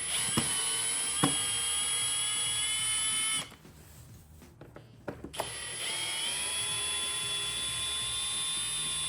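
Cordless drill-driver backing out Phillips head screws from the plastic rear mud flap, its motor whining steadily in two runs of a few seconds each, one per screw. Each run starts with a click.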